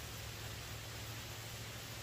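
Rain falling steadily: an even, unbroken hiss with a low steady hum beneath it.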